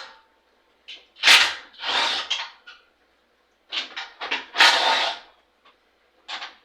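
A power driver or ratchet running in five short bursts, backing out the 3/8-inch bolts that hold a lawn mower's recoil starter housing.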